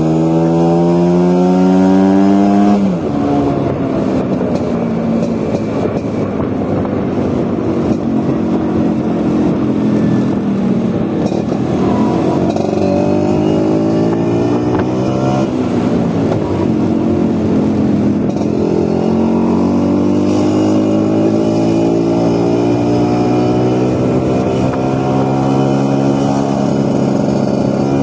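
Vespa scooter engine pulling under way, its pitch climbing as it accelerates. About three seconds in the pitch drops sharply, then it climbs again twice. A rushing noise sits under the engine through the middle stretch.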